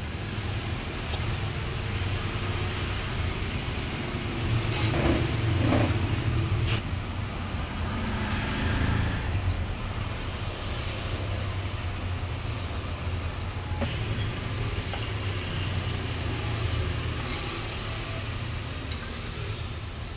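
Steady low rumble of background noise, swelling briefly about five seconds in and again around nine seconds.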